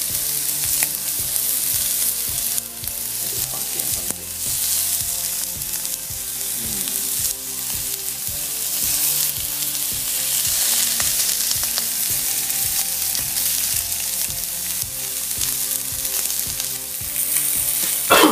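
Saba (mackerel) fillets sizzling steadily in an oiled ridged grill pan over a gas flame turned down to lower heat, a continuous hiss dotted with small crackles of spitting oil and fat. A brief louder burst comes near the end.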